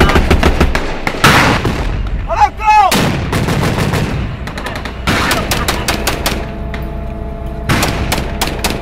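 Gunfire in a street firefight: rapid shots from rifles and machine guns, with heavier blasts about a second in, about halfway through and near the end.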